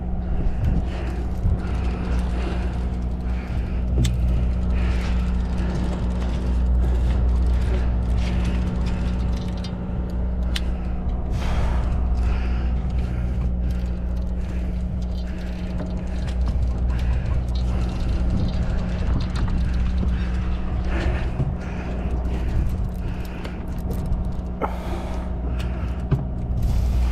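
A sportfishing boat's engine running steadily, a low hum with several fixed tones, with scattered short clicks and knocks on top.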